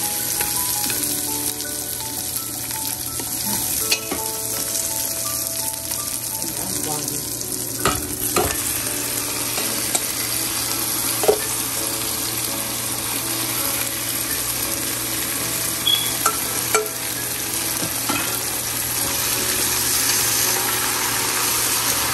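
Marinated beef sizzling as it is stir-fried in a hot pan with garlic: a steady frying hiss, with a few sharp clicks of the utensil against the pan.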